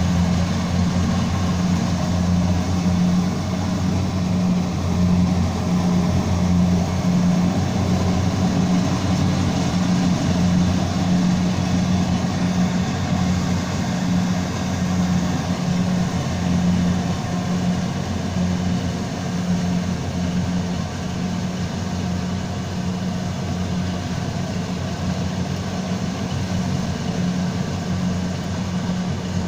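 Engine of rice harvesting machinery running steadily, a low, even hum with a slight pulse.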